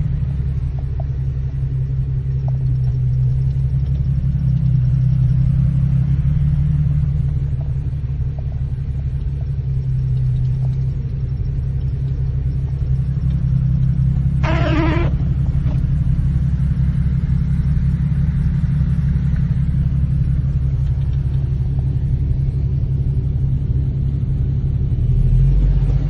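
Steady low rumble of a car's engine and road noise heard from inside the cabin as it drives through floodwater, with a short single tone about halfway through.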